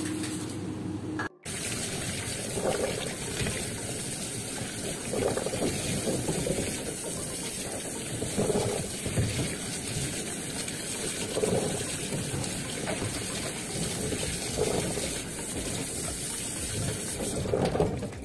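Water sloshing from a scoop in a grooming tub, then, after a brief drop-out about a second in, a handheld shower sprayer running steadily, its spray hissing onto a dog's wet coat and splashing on the floor mat.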